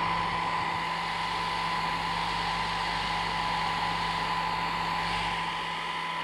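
Handheld hair dryer running steadily while blowing warm air on a wet kitten's fur, a constant rush of air with a steady whine in it.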